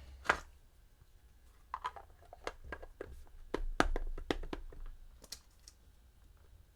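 Small parts and tools being handled on a workbench during a guitar rebuild: a series of light clicks and knocks, with one sharp click near the start and a dull thump about four seconds in.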